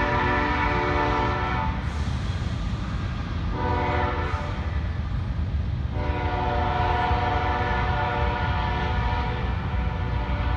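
Freight train's locomotive horn sounding in blasts: one ends a little under two seconds in, another runs from about three and a half to six seconds, and a long one starts at about six seconds and holds, over the steady low rumble of the passing train.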